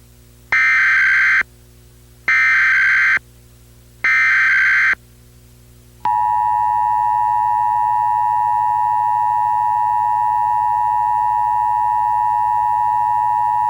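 Emergency Alert System signal: three short, identical bursts of the warbling digital SAME header, encoding a Required Monthly Test. About six seconds in, the steady two-tone EAS attention tone starts and holds without a break.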